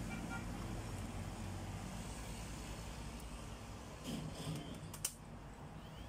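Hands handling parts of an opened PS4 Slim over a steady low background rumble, with one sharp click about five seconds in.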